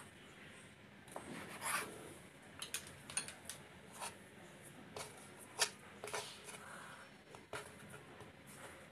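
Knife cutting through soft dough and tapping on a wooden cutting board, then dough pieces being pulled apart and set down on the board: a scattering of light, irregular taps and clicks.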